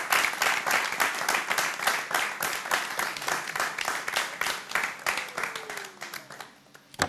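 Studio audience applauding, many hands clapping fast and unevenly, thinning out and dying away about six seconds in.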